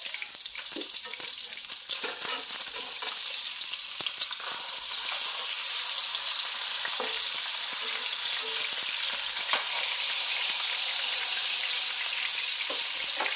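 Kingfish steaks sizzling in hot oil in a nonstick frying pan as they are flipped with a spatula; the sizzle grows louder about five seconds in, with a few light clicks of the spatula against the pan.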